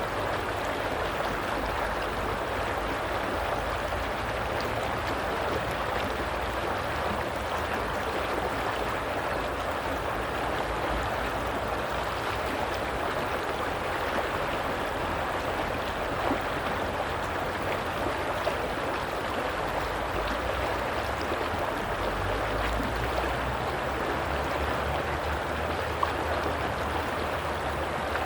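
Stream water running and gurgling steadily, a continuous even rush with small occasional splashes.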